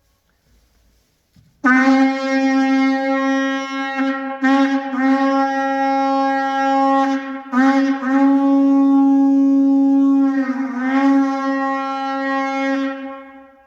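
Sable antelope horn shofar blown in one long, loud, steady note of about eleven seconds, starting after a short silence. The note is broken and restarted twice, sags briefly in pitch near the end, then fades out.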